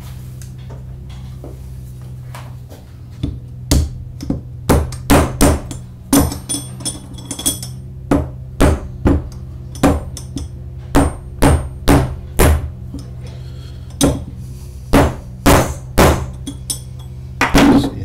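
Hammer blows driving a tapered-roller bearing outer race into a new MGB front hub, struck through a spare race of the same type used as a drift. About two dozen sharp taps come in irregular runs, starting about three seconds in.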